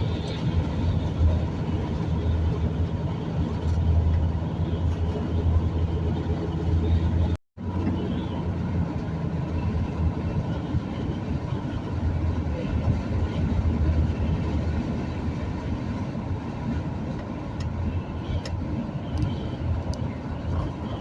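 Vehicle driving at highway speed: steady engine drone and tyre and road rumble, heard from inside the cab. The sound cuts out completely for a moment about seven seconds in.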